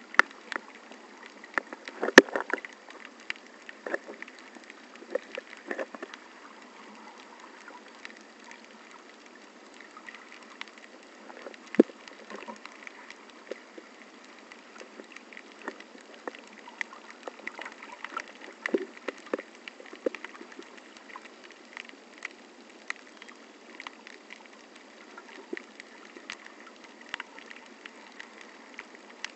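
Muffled underwater sound picked up through a waterproof camera housing: a steady wash of moving water with irregular clicks and crackles throughout, a few sharper knocks standing out, the loudest about two seconds in and again near twelve seconds.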